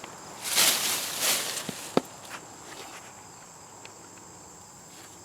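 Footsteps rustling over the ground for about a second, then a single sharp click, with insects chirring steadily and faintly in the background.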